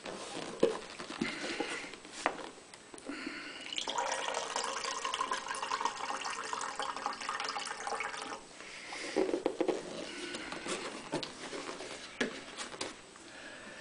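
Apple juice pouring in a steady stream from a bag-in-box carton's tap into a glass mug of juice, from about three and a half seconds in to about eight and a half. A few short knocks and a louder clatter follow as the carton is handled and moved.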